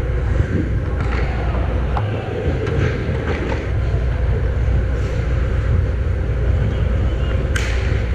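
Ice hockey rink ambience heard from the net: a steady low rumble with faint skate and stick noises, a few short clicks, and a sharp clack near the end.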